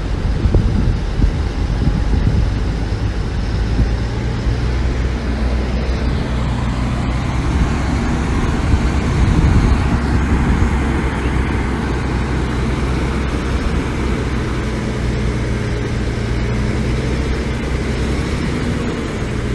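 Diesel engine of heavy earthmoving machinery running steadily as a low drone, slightly louder about ten seconds in.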